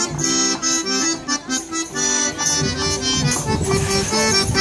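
Kurpian folk dance music: a melody of held notes changing in steps over a regular beat.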